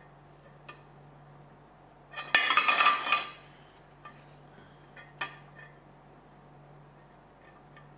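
Thin steel rods clinking and rattling against each other: a loud clatter of metallic ringing about two seconds in, lasting about a second, followed by a few light metal taps as the rods are handled.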